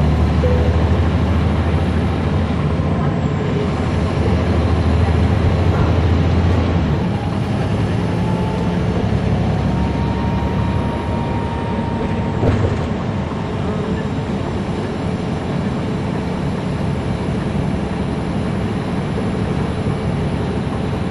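Caterpillar C13 diesel engine of a NABI 40-foot transit bus running under way, heard from inside the bus. The deep engine note falls away about seven seconds in, and a single thump sounds around twelve seconds in.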